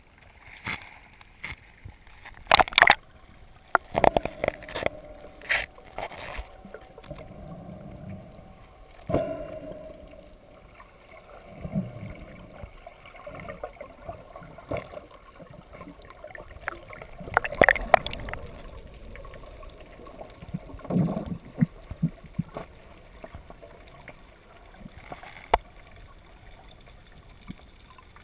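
Sea water slapping and splashing against the camera's housing at the surface, with many sharp splashes in the first few seconds. After that the sound turns muffled, with underwater gurgling and a few scattered knocks and bubble bursts.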